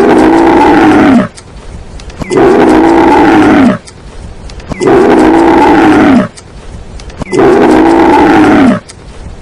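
Camel calling over and over: a loud call about a second and a half long, falling in pitch towards its end, repeated about every two and a half seconds.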